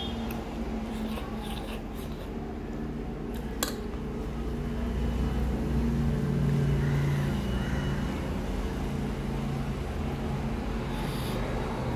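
Steady road-traffic rumble with a vehicle engine swelling and fading in the middle, and a single sharp click about four seconds in.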